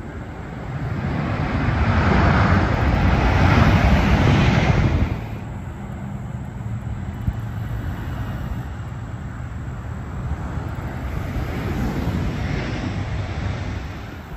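Jet airliner on final approach, a steady low rumble of engines mixed with cars passing on the road close by. The loudest swell builds over the first couple of seconds and cuts off suddenly about five seconds in; a second, gentler swell rises and fades near the end.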